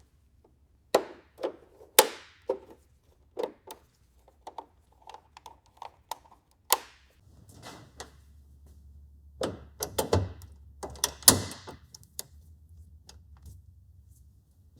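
A run of irregular sharp clicks and knocks of hard objects being handled, loudest about two seconds in and again around eleven seconds. A low steady hum comes in about halfway through.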